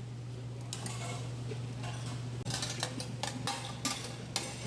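Metal cooking utensils clattering and scraping on a Mongolian barbecue grill while a stir-fry bowl is cooked, in irregular clicks and clanks that come thicker in the second half, over a steady low hum.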